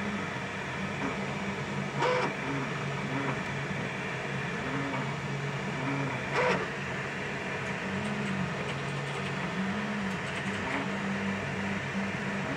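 FDM 3D printer printing, its stepper motors whining in short rising and falling tones as the print head moves, over a steady hum. Two brief louder sounds stand out, about two seconds in and again at about six and a half seconds.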